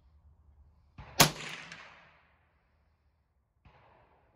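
A single rifle shot from a scoped Ruger 10/22, with a short fading echo after it and a lighter crack just before it. A faint crack comes near the end.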